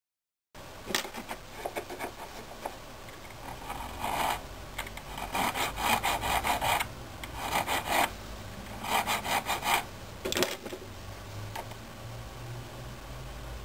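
Needle file rasping on a small cast-silver pendant held against a wooden bench pin, in bursts of quick back-and-forth strokes separated by short pauses.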